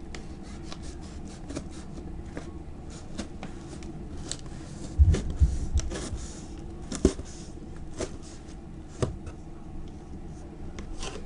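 Cardboard shipping box and its packing being handled: rubbing and scraping with many small clicks, and a few heavy thumps, the loudest about five seconds in and others near seven and nine seconds.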